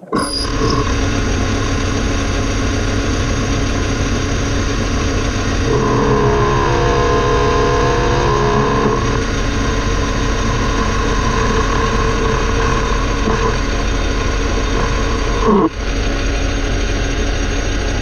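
Metal lathe running at speed, taking a light finishing cut on the outside of a gear blank. The machine noise is steady, with a wavering tone that dips and rises for a few seconds in the middle and a brief break near the end.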